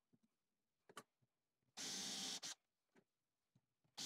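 Cordless drill spinning a Forstner bit into MDF in two short bursts, each under a second long, with a light click before the first.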